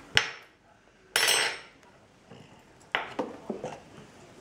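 Cutlery clinking against crockery: a sharp clink, then a louder clatter with a metallic ring about a second in, and a quick run of knocks and clinks near the end.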